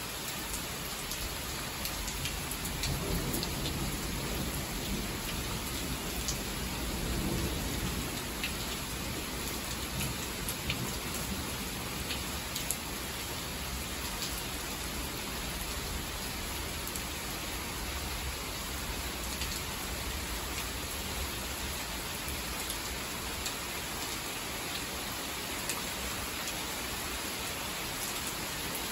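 Heavy rain pouring steadily, with scattered close drops ticking. A low rumble of thunder swells from about three to eight seconds in.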